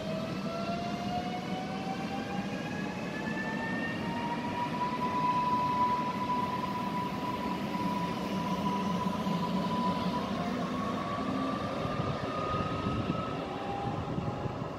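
Electric multiple unit accelerating away: its traction motors give a whine that rises in pitch, holds steady for several seconds, then rises again near the end, over a low rumble.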